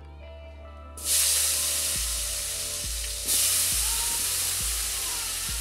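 Halved new potatoes dropped into hot oil in a wok, sizzling loudly. The sizzle starts suddenly about a second in, surges again with a second batch a little after three seconds, then slowly dies down.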